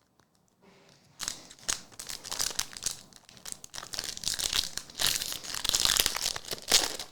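Foil trading-card pack wrapper crinkling and tearing as the pack is opened, a dense run of crackling that starts about a second in.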